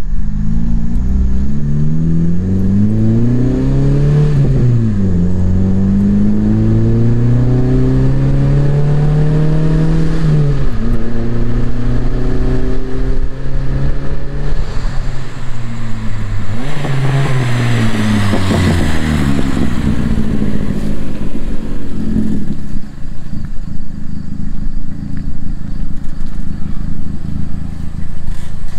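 Chrysler 2.4-litre four-cylinder with its muffler cut off, running straight-piped: it pulls through the gears, revs climbing and dropping at two gear changes. Around two-thirds of the way in the revs fall away, then settle to a steady run.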